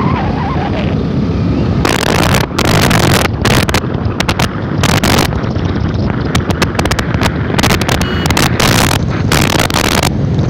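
Wind buffeting the microphone on a moving motorcycle: a constant low rumble with irregular loud gusts of rushing noise, several a few seconds apart, over the bike's running noise.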